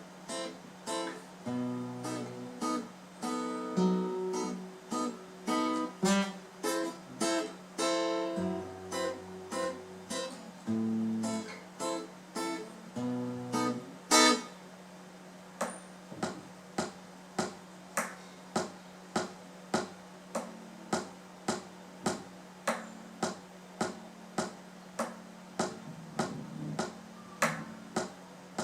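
Acoustic guitar plays the closing instrumental bars over a steady ticking knock beat. About halfway through, the guitar ends on one loud strum. After that only the even ticking goes on, about three ticks every two seconds.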